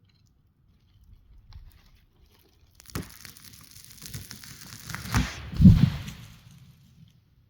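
A tree falling: a sudden crack, then a rising crackle and tearing of wood and branches that ends in two heavy thuds as it hits the ground, fading out quickly.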